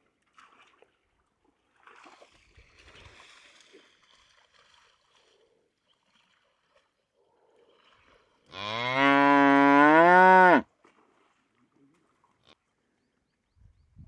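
Water buffalo mooing: one loud, long call of about two seconds, rising in pitch toward its end, beginning about eight and a half seconds in.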